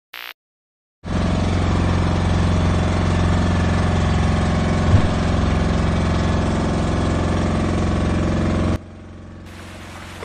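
Outrigger boat's engine running steadily, a low even drone with one short knock about halfway through. It cuts off to a much quieter hiss near the end.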